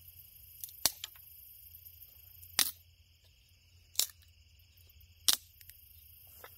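A small kindling fire popping with four sharp cracks, spaced a second or so apart, over the steady high chirring of crickets.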